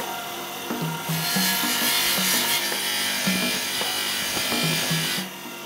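Motor-driven polishing wheel spinning against the silver cup, a steady rushing hiss that starts about a second in and stops about five seconds in, as the planishing marks are polished out and the metal shined up.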